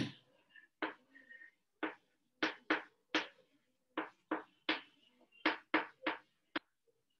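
Chalk writing on a blackboard: about a dozen short scraping strokes at an uneven pace as letters are written, after a sharper knock at the very start.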